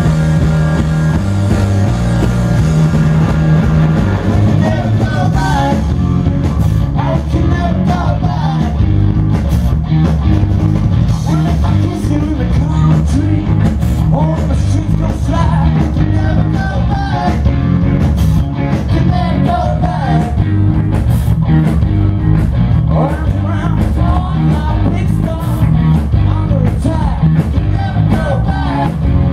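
Live rock band playing amplified electric guitars, bass guitar and drums. Sustained chords open it, and a moving melody line comes in on top after about four seconds.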